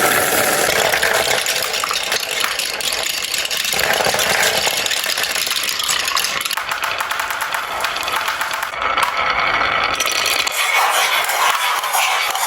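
Many marbles rolling and clattering down a marble run, a dense stream of small clicks and rattling over a steady rolling rumble.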